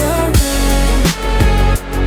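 Synth-pop music: a regular electronic drum beat with deep bass under sustained synthesizer tones, opening with a short gliding tone.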